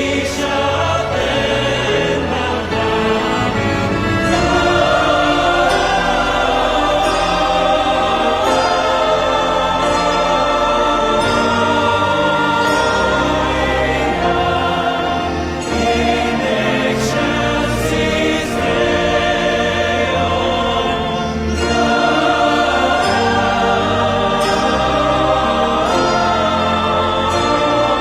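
Choral music: a choir singing long held lines over instrumental accompaniment with a low bass.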